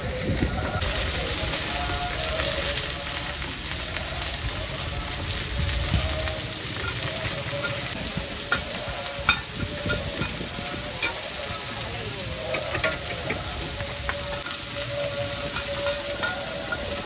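Mussel omelettes frying in oil on a large round flat griddle pan: a steady sizzle, with metal spatulas scraping and clicking against the pan every so often as the omelettes are turned.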